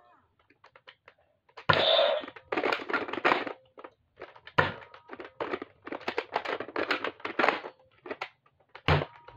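Plastic toy dart blaster being handled and worked: a string of irregular clicks, rattles and scrapes, starting about two seconds in with the loudest one.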